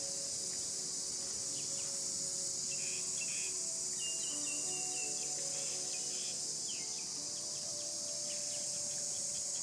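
Steady high-pitched drone of an insect chorus, with a few short bird chirps a few seconds in.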